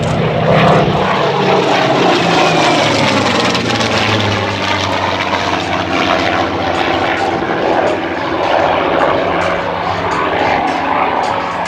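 Supermarine Spitfire Mk XIX's Rolls-Royce Griffon V12 engine and propeller in a low display pass. Its pitch falls over the first few seconds as it goes by, then holds as a steady drone.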